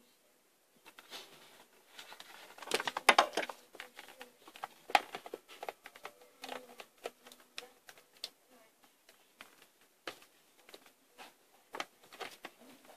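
Irregular soft clicks, taps and rustles of things being handled and moved about, with a louder run of clatter about three seconds in.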